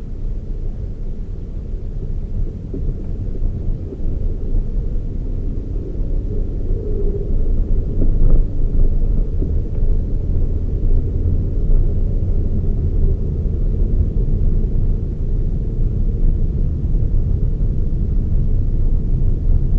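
Toyota Raize small SUV being driven: a steady low rumble of engine and road noise that grows somewhat louder partway through.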